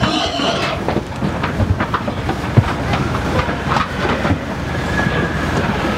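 Irregular knocks and clanks from a crowded pig transport trailer, pigs shifting against its metal sides and floor, over a steady low noise.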